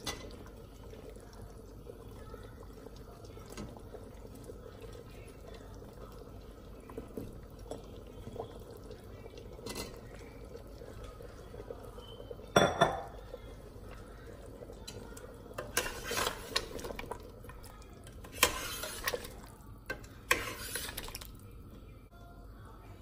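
Raw potato chunks dropped into curry in a stainless steel pressure cooker, then a steel ladle stirring and clinking against the side of the pot. There are several sharp clinks in the second half, over a low steady hum.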